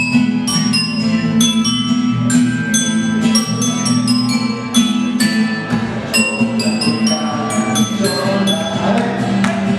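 An Ecuadorian pasacalle played instrumentally: a quick melody of bright, bell-like struck notes, each ringing on, over a steady sustained low chord.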